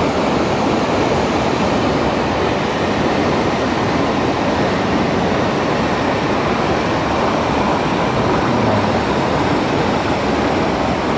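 Fast, heavy mountain river water rushing: a loud, steady wash of noise.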